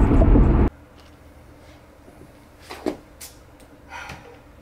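Car cabin road noise, a steady low rumble, cut off suddenly less than a second in; after it, quiet room tone with a few soft knocks and clicks.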